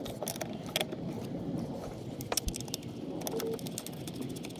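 Light metallic clicks and taps, irregular, from hands fitting a bracket and its hardware back onto a brake master cylinder in a car's engine bay.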